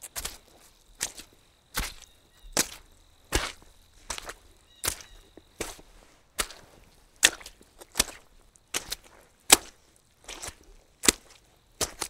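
Footsteps walking on soggy, wet ground at a steady walking pace, a little more than one step a second.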